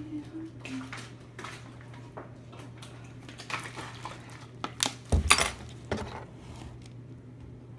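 Small objects being handled and set down on a hard surface: scattered knocks and clinks, the loudest cluster about five seconds in, over a steady low hum. A few hummed notes are heard at the very start.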